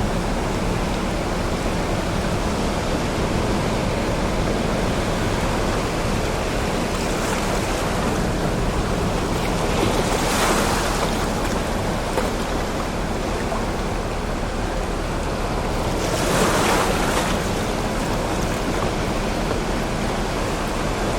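Stormy Baltic Sea waves breaking on rocks: a continuous loud wash of surf, with two bigger waves crashing and splashing about ten seconds in and again near sixteen seconds.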